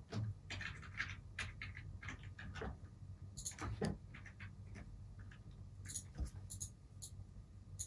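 Faint, irregular scratching, rustling and light clicks of hands handling a cotton bud close to the face, several small sounds a second, over a low steady hum.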